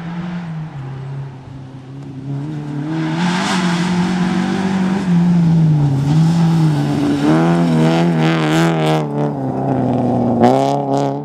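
Peugeot 206 rally car's engine, its pitch rising and falling repeatedly with gear changes and throttle lifts on a gravel stage, growing louder as the car approaches. Near the end it is loudest, with quick up-and-down revs and a few sharp cracks as it passes close by, then it falls away.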